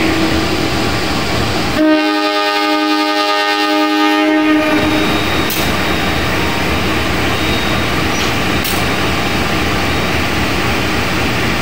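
A diesel locomotive's horn sounds one steady blast of about three seconds, starting about two seconds in. Under it the passing train's engine and wheels rumble steadily, with a couple of faint clicks later on.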